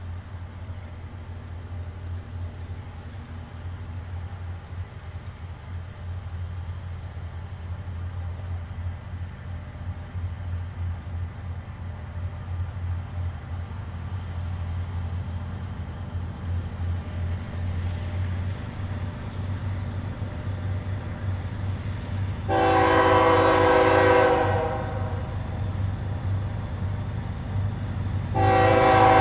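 Canadian Pacific GE ES44AC diesel locomotives running at heavy throttle to start a long freight train moving, their engine rumble slowly growing louder as they approach. The locomotive's air horn blows a chord of several notes for about two seconds roughly 22 seconds in, then again near the end. Crickets chirp steadily throughout.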